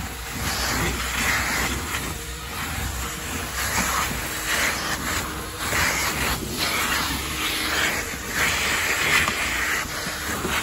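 Car wash vacuum hose sucking crumbs and debris off a car's floor carpet. It is a steady rushing hiss over a low hum, getting louder and softer unevenly as the nozzle moves over the carpet.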